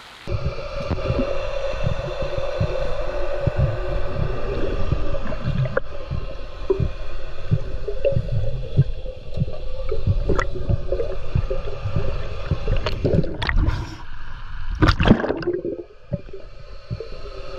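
Underwater water noise picked up by a camera below the surface as a swimmer works plastic rings into a silty pond bottom: muffled gurgling and sloshing with many irregular low thumps and knocks over a steady low hum. A louder gurgling rush comes about fifteen seconds in.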